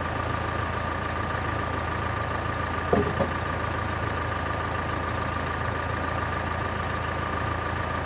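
An engine running steadily at one even speed, a constant high whine over a low hum. A brief louder sound cuts in about three seconds in.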